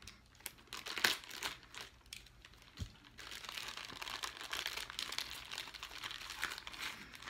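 Crinkling of a snack bag being opened and rummaged through: scattered sharp crackles at first, turning to a denser, steadier crinkling about three seconds in.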